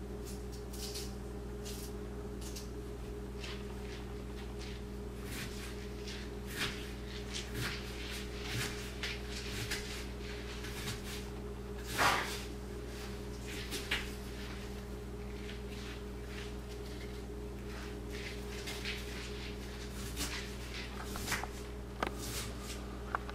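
A steady low hum with a few pitched lines, overlaid by scattered faint clicks and light taps, the clearest about twelve seconds in.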